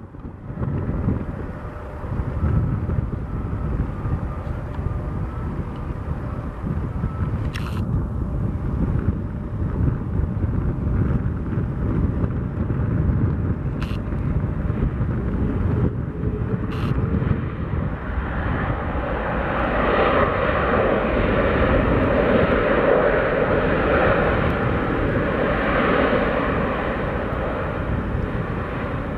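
Boeing 767-300 freighter's jet engines on landing, heard outdoors as a steady rumble that swells to its loudest about two-thirds of the way through and then eases off. A few faint clicks are heard before the swell.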